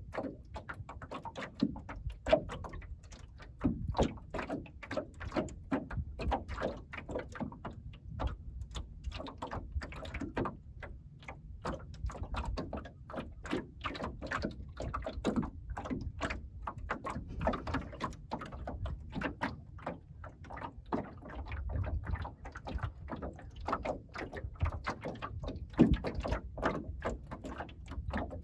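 Small waves lapping and slapping against the wooden hull of a sailing skiff under way, an irregular run of many small splashes and knocks over a low rumble.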